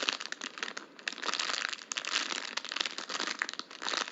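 Plastic packaging crinkling and rustling as it is handled: a continuous run of small crackles.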